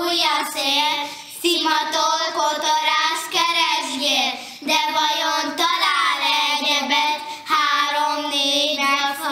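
Three young girls singing together, held notes changing pitch every second or so.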